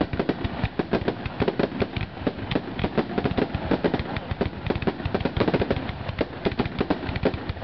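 Fireworks finale: a dense, continuous barrage of aerial shell bursts, several sharp bangs a second with no let-up.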